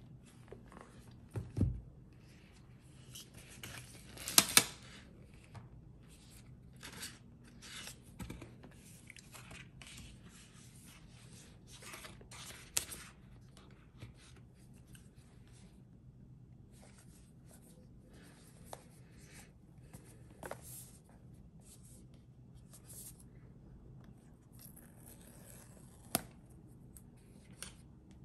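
Paper and cardboard packaging of an Apple Watch Series 7 box being opened by hand. A dull thump at about a second and a half is followed at about four seconds by a short, loud rip of tearing paper. After that come scattered rustles, scrapes and light taps as the card sleeve is unfolded and the inner box is handled.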